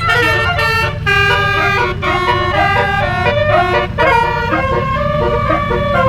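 Basuri (telolet) multi-trumpet vehicle horn playing a quick melody of stepping notes, over a steady low rumble.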